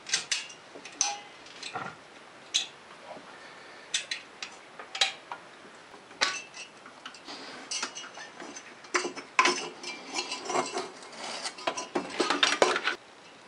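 Sharp metallic clicks and clinks of a hook tool catching and unhooking the steel exhaust retaining springs on a Polaris ATV, coming singly and irregularly. Near the end comes a denser stretch of metal rattling and scraping as the loosened exhaust pipe is handled.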